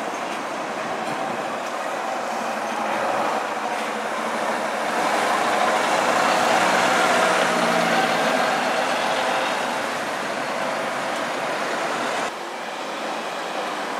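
A bus engine running as the bus turns through a roundabout and pulls away. It is loudest a few seconds in, as the rear of the bus passes, then fades. Near the end the sound cuts off abruptly to quieter traffic.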